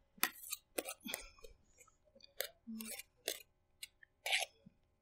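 Metal spatula scraping and pressing whipped cream against the inside of a stainless steel cake ring: a series of short, soft scrapes and taps, about half a dozen, with gaps between.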